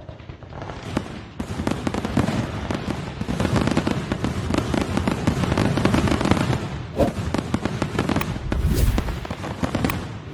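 Fireworks going off: a dense, continuous crackling with pops and deeper thuds, building up over the first second or two, with a few sharper cracks near the end.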